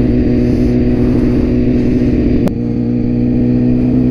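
BMW S1000RR inline-four engine pulling the bike along at a steady cruise, its note holding one pitch, with a brief dip about two and a half seconds in.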